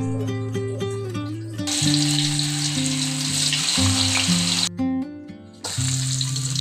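Food sizzling as it fries in hot oil in a pan, starting about two seconds in, breaking off sharply for a moment near the five-second mark, then going on more softly, with plucked-guitar background music throughout.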